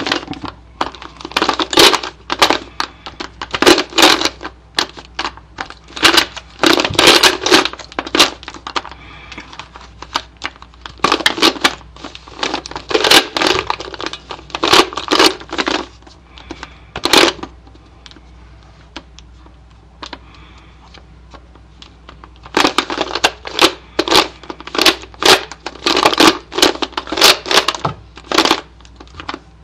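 Plastic Rubik's cube being turned fast by hand in a timed solve: bursts of rapid clicking turns with short pauses between, and a longer pause in the middle, the stop-and-look rhythm of solving by the layer-by-layer beginner's method.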